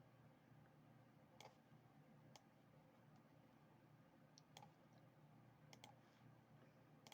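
Faint computer mouse clicks: about seven short, sharp clicks at uneven intervals, a couple of them in quick pairs, over a faint steady low hum.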